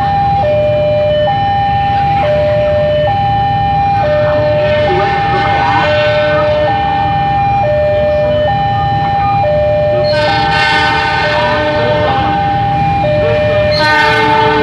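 Railway level-crossing warning alarm sounding its two-tone high-low chime, about one cycle per second, over the low rumble of waiting motorcycle engines. An approaching train sounds its horn about ten seconds in and again near the end.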